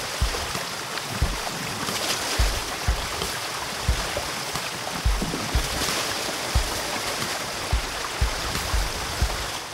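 A steady rushing hiss, under background music with a thumping bass-drum beat at about two beats a second.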